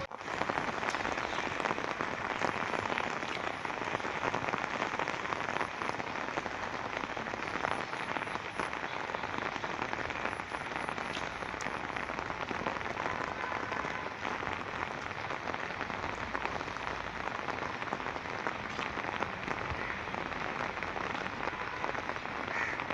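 Steady rain falling, an even hiss sprinkled with many small drop ticks.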